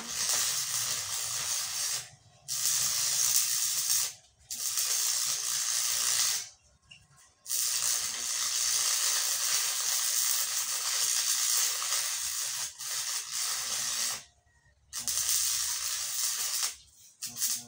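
Electric arc welding: the arc hisses and crackles steadily while a new tooth is welded onto a loader bucket. The arc breaks off and is struck again four times.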